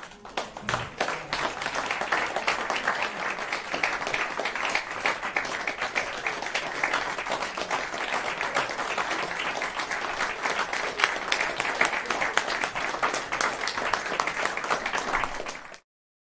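Audience applauding, swelling over the first second or two and then holding steady before being cut off abruptly near the end.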